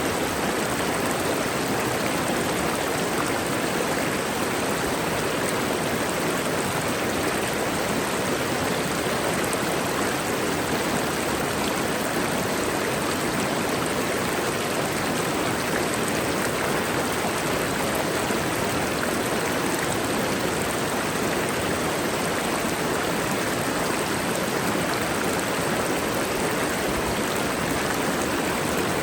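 Mountain waterfall: water falling and rushing in a steady, unbroken roar of even noise.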